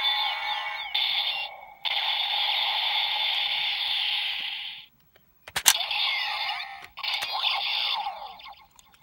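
DX Ghost Driver toy belt playing its electronic sound effects and music through a small tinny speaker, with sweeping tones and a hissy stretch. The sound cuts off about five seconds in, a sharp click follows, and then another run of sound effects plays.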